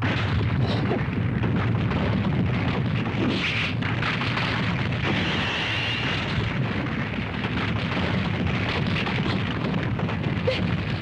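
Animated rockslide sound effect: boulders crashing and tumbling in one continuous, dense rumble without a break.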